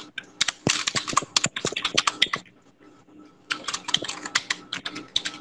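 Computer keyboard typing in two fast runs of keystrokes with a pause of about a second between them, as an email address and then a password are typed in.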